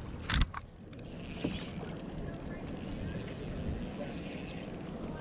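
A brief sharp knock about half a second in, then steady low rumbling water and wind noise around a plastic sit-on-top kayak drifting on a lake.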